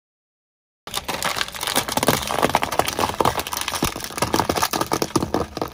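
Rapid crunching and crackling of brittle things being crushed under a car's tyre, starting about a second in with many close snaps and cracks.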